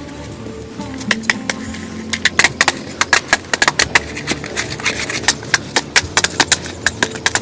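Rapid, irregular sharp taps or knocks, a few at first and then several a second from about two seconds in, over faint steady tones.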